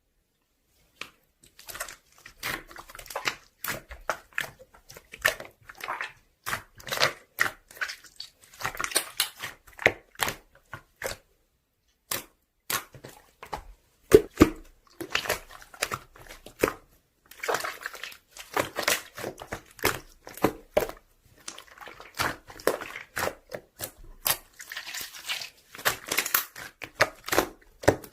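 Slime being squeezed and poked by hand: a quick, irregular run of wet squishes, pops and crackles, pausing briefly now and then.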